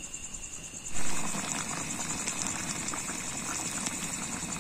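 A pot of curry gravy simmering and bubbling over a wood fire; the bubbling starts suddenly about a second in and then holds steady, with fine crackly ticks. Crickets chirp steadily throughout.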